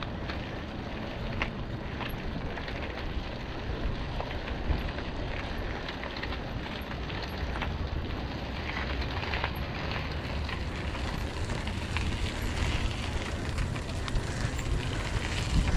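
Steady crunching and crackling on a loose dirt and gravel hill trail, with wind rumbling on the microphone.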